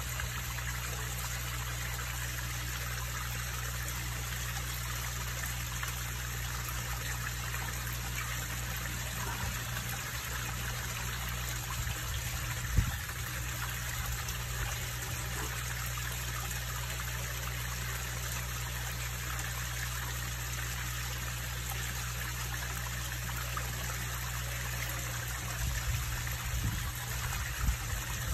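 Small garden-pond waterfall splashing and trickling steadily into the pond, over a low steady hum. A single short low thump about halfway through, and a few softer low bumps near the end.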